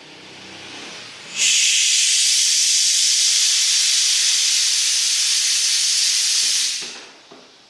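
Gas at medium pressure rushing through the valve under test with a loud, steady hiss that starts suddenly. About five seconds later it dies away quickly as the seismic safety valve trips and shuts off the flow.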